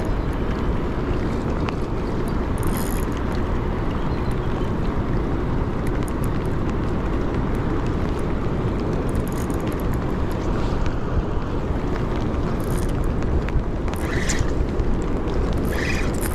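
Steady rushing noise of rain and wind on an action camera's microphone, with a couple of brief faint ticks near the end.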